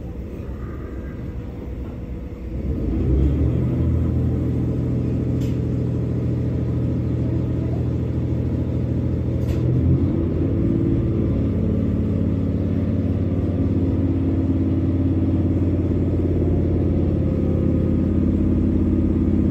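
Train engine running up to power as the train pulls away: a low, steady drone that rises sharply about two and a half seconds in and shifts pitch again about ten seconds in.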